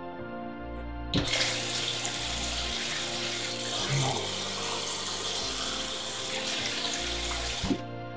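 Kitchen tap running water for about six and a half seconds, turned on about a second in and shut off near the end, over background music.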